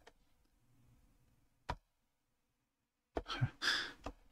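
Quiet room tone broken by a few single computer-keyboard clicks, then about three seconds in a quick run of keystrokes and a breathy exhale.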